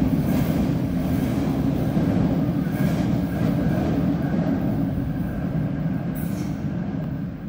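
Sydney Trains electric suburban train pulling away from the platform into a tunnel: a steady rumble of wheels and running gear with a faint high tone over it, fading off near the end as the train recedes.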